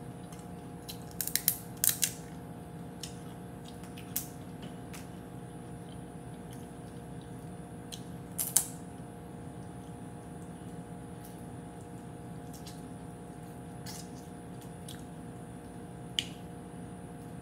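Boiled crawfish shells cracking and snapping as they are peeled by hand and eaten: a handful of sharp cracks spread apart, with a quick cluster about a second in and the loudest near the middle. A steady low hum runs underneath.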